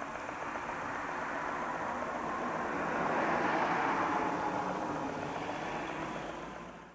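A vehicle passing by, swelling to its loudest about halfway through and fading away near the end.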